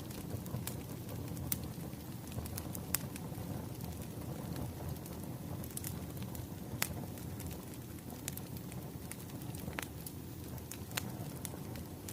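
Wood fire crackling: a steady low noise of burning logs with irregular sharp pops and snaps, one or two every second or so.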